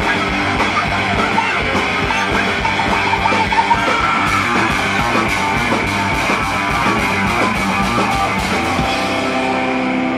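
Live punk rock band playing: electric guitar, bass and drums at full tilt. The drums stop about nine seconds in as the song ends, leaving a guitar chord ringing out.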